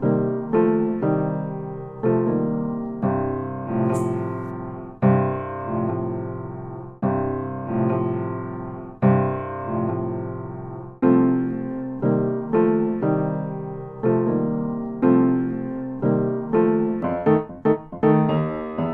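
Solo piano music: chords and notes struck roughly once a second and left to die away, the notes coming quicker near the end. A brief high hiss sounds about four seconds in.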